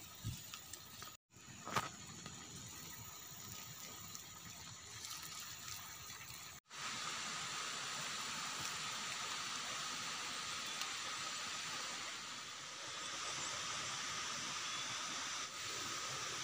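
Steady outdoor hiss, like rushing water or wind, with faint steady high tones in it. It cuts out completely twice, briefly, about a second in and again near seven seconds in, and is louder and steadier after the second break.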